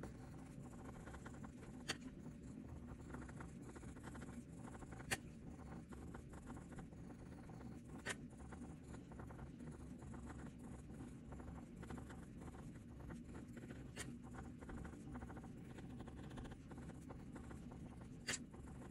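Wax-based colored pencils scratching faintly across paper in quick, short hatching and cross-hatching strokes, with a few sharp clicks spread through the stretch.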